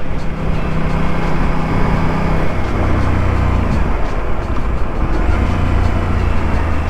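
Aprilia RS660's 659 cc parallel-twin engine running under way, heard through the rider's camera microphone with steady wind rush over it. The engine note drops lower about halfway through.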